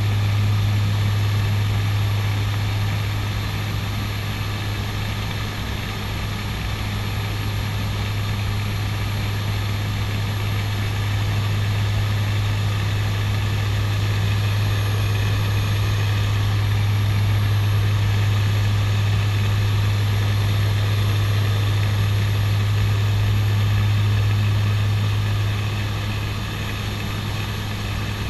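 Twin Garrett TPE331 turboprop engines and propellers of a CASA NC-212-200 Aviocar in cruise, heard inside the cockpit as a steady drone with a strong deep hum. The level swells and dips slightly but the engines do not change.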